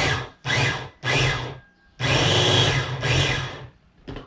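Electric food processor pulsing as it grinds raw chicken meat and onion: three short bursts of the motor, each about half a second, then one longer run of about a second and a half before it stops.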